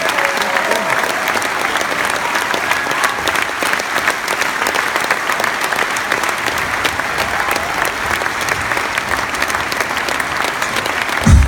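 A theatre audience applauding, a steady dense patter of clapping. Loud music with a heavy bass comes in right at the end.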